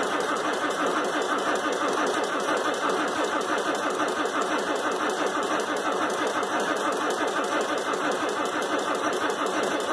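Allis-Chalmers 940 wheel loader's diesel engine cranking over steadily on the starter in an even, rhythmic beat without catching: a cold start with no block heater.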